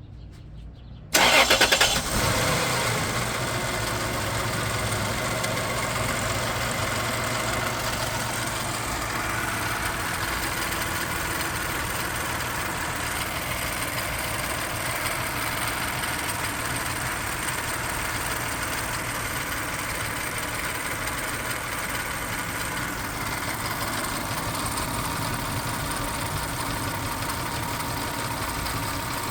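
Toyota 3.4 L 5VZ-FE V6 engine starting about a second in: it flares up loudly, then settles into a steady idle. It is running with a misfire after a head gasket replacement.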